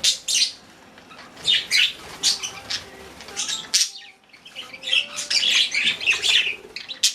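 Pet budgerigars chirping and chattering in quick bursts of high-pitched notes, with a short lull about four seconds in.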